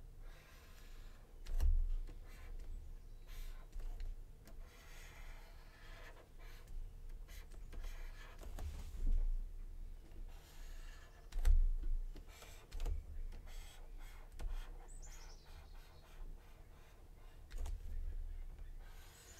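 Plastic stylus scratching in short strokes across a Huion graphics tablet, with scattered light clicks and a few dull thumps. A brief high chirp falls in pitch about fifteen seconds in.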